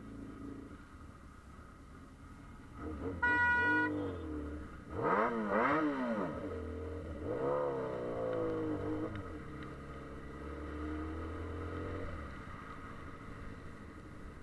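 Motorcycle engine pulling away from a stop and accelerating through the gears, its pitch climbing and dropping at each shift before it settles to a steady cruise. A short horn beep sounds about three seconds in.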